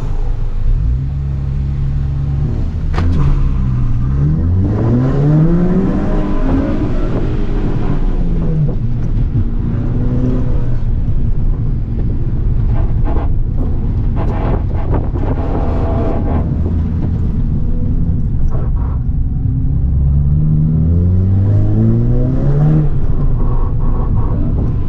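Volkswagen Golf GTI Mk6's turbocharged 2.0-litre four-cylinder engine accelerating hard on an autocross run. The engine note climbs about three seconds in, drops back after about eight seconds, and climbs again near the end.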